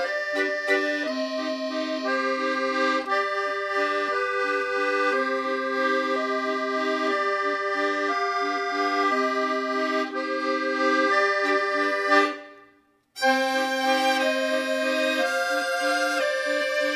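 Background instrumental music: a melody of held notes over sustained chords. It fades out about twelve seconds in, stops for a moment, then starts again.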